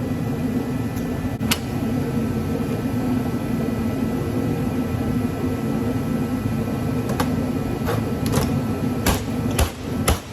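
Steady mechanical hum of a running machine, with a single click early and then a run of sharp clicks and knocks in the last few seconds, typical of small metal scrap parts being handled.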